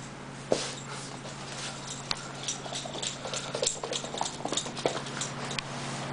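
A small puppy's claws clicking irregularly on a hardwood floor as it runs with a tennis ball, with one sharper knock about half a second in, over a steady low hum.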